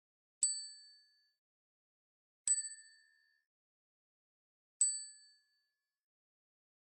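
Small brass bell rung three times, about two seconds apart: each a bright ding with a few high ringing tones that dies away within about a second.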